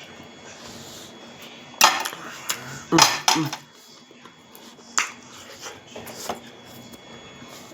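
Cutlery clinking and scraping on a plate during a meal, with a few sharp clicks, the loudest about two and three seconds in and lighter ones near five and six seconds.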